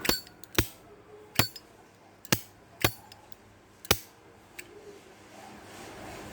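An American Zippo lighter's hinged metal lid snapped open and shut over and over: six sharp metallic clinks, each with a brief high ring, at uneven intervals over about four seconds.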